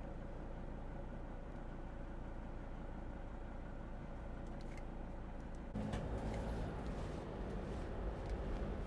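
Inside the cab of a 2006 Mercedes Sprinter van on the move: a steady low engine and road rumble that grows louder about six seconds in.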